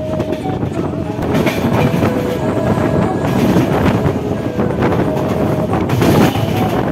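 A moving passenger train's wheels running on the rails, a steady rumble and clatter heard from an open coach door.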